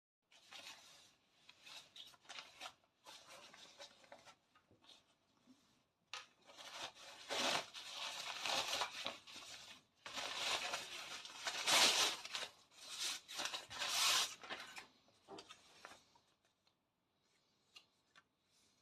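Rustling and crinkling of crinkly material being handled, in uneven stretches, loudest in two long spells in the middle and dying away near the end.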